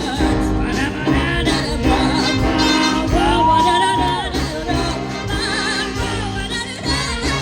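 Big band jazz with a vocalist: a singer holds notes with vibrato over the band's sustained chords.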